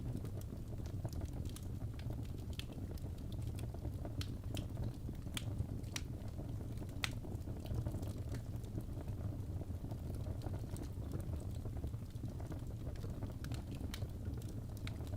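Wood fire burning in a fireplace: a steady low rumble of flames with irregular sharp crackles and pops of the burning wood.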